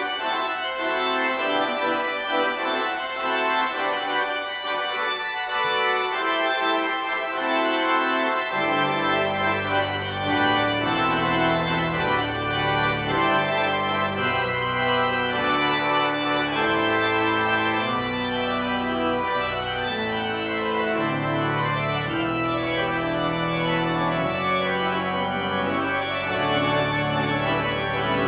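Church pipe organ playing full sustained chords. Deep pedal bass notes come in about eight seconds in.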